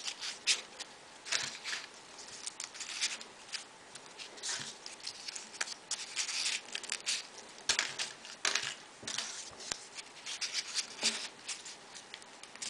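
Small folded paper units rustling and scraping as they are pushed into a modular origami model, in irregular short crinkles and clicks.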